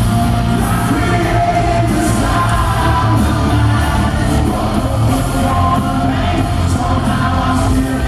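Hard rock band playing live at full volume: the lead singer sings over electric guitar, heard from the crowd at a concert.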